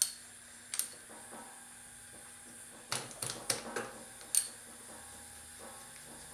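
Scattered sharp metallic clicks of a ratchet and socket working on a valve inspection cap on a Honda CB550 cylinder head. There is a quick run of clicks about three seconds in and a single sharp click about a second later.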